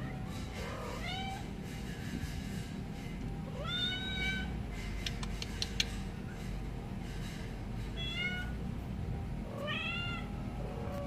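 Young kittens mewing: about four high-pitched mews a few seconds apart, each rising or arching in pitch, with a few sharp clicks about halfway through.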